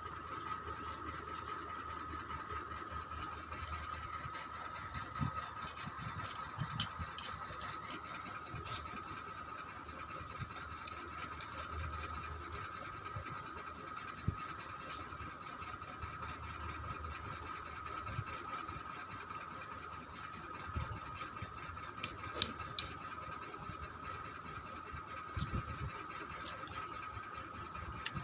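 Someone eating Maggi instant noodles: soft, scattered chewing and mouth sounds with a few sharp clicks, over a steady mechanical hum that holds one tone throughout.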